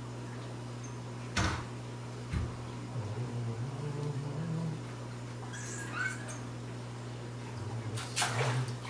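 Steady low hum with two sharp knocks about a second apart, as a large rock is set down against rock and glass in a part-drained aquarium; a few softer knocks and rustles follow.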